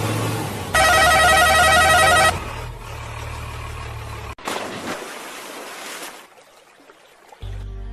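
Dubbed-in toy-vehicle sound effects. A steady low engine-like drone is broken about a second in by a loud warbling electronic tone that lasts about a second and a half. After a cut comes a rushing noise, then a short lull, and near the end a steady buzzing tone starts.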